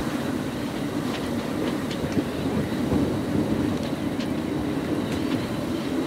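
Strong wind buffeting the microphone over water rushing past the hull of a sailing yacht, a steady low rumble with a few faint ticks.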